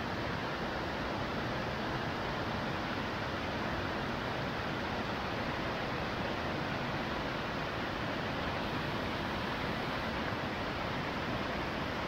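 Steady rush of a mountain stream's cascades and waterfalls, running high after two days of rain.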